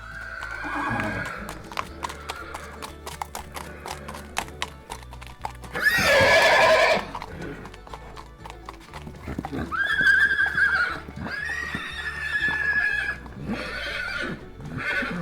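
Horses neighing, about five whinnies: a falling one near the start, the loudest about six seconds in, then three more in the second half. Hooves clatter in quick beats during the first few seconds, over quiet background music.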